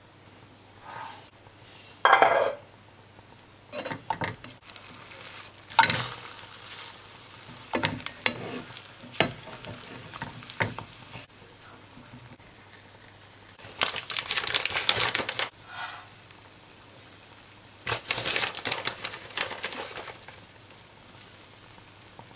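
Egg and bread frying in a nonstick pan, with a slotted spatula scraping and turning it in several short noisy bursts.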